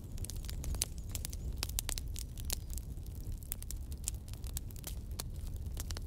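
Wood bonfire burning, its logs crackling with many irregular sharp pops over a steady low rumble.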